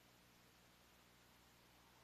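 Near silence: a faint steady hiss with a low hum beneath it.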